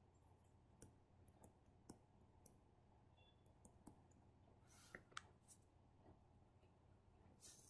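Near silence broken by a dozen or so faint, irregular clicks of a stylus pen tapping and dragging on a writing surface as an equation is handwritten.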